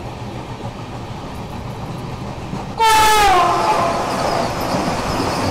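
Steady running rumble of a train, then about three seconds in a Vande Bharat Express passing on the next track sounds its horn loudly, the pitch dropping as it goes by. The loud rush of its coaches passing alongside follows.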